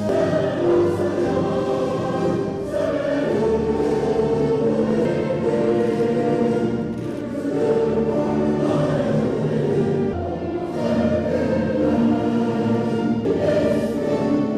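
A national anthem sung by a choir with orchestral accompaniment, with sustained chords and phrases.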